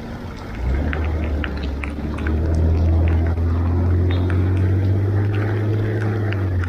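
A motor vehicle's engine running close by: a low steady drone that starts about half a second in and rises slightly in pitch partway through, with scattered light ticks over it.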